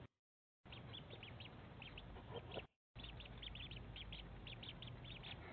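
Newly hatched ducklings peeping: short, high-pitched peeps, several a second, over a faint low hum. The sound drops out briefly at the start and again a little before the halfway mark.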